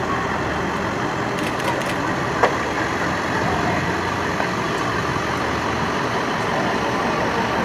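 Fire-rescue truck's engine running steadily as it drives slowly past at low speed.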